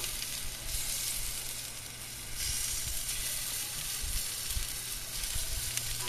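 Fat sizzling on a whole chicken roasting on a barbecue rotisserie spit, with a steady low hum underneath.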